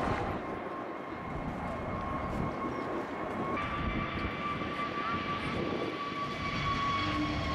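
Airbus A321neo jet engines running with a steady whine over a broad rumble as the airliner begins its takeoff roll. About three and a half seconds in, the whine grows stronger and higher tones join it as the engines spool up.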